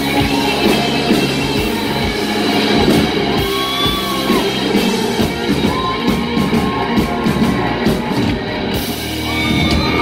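Live rock band playing loud, with electric guitars, bass guitar and drums and shouted vocals.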